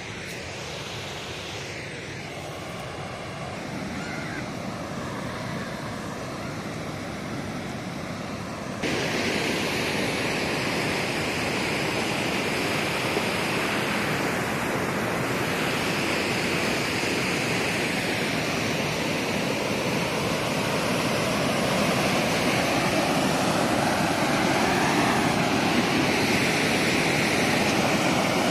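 Steady rushing of floodwater pouring over a lake's spillway. It comes in suddenly about nine seconds in, after a quieter steady noise, and grows a little louder near the end.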